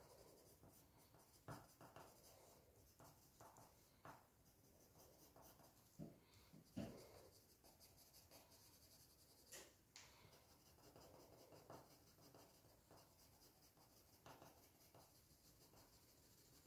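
Faint scratching of a sharpened coloured pencil on paper: short, irregular strokes with a few soft ticks between them, as the pencil presses hard along the contours.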